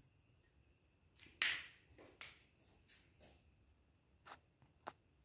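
Whiteboard marker making a few short, faint strokes on the board, the first about a second and a half in the loudest, with quiet between.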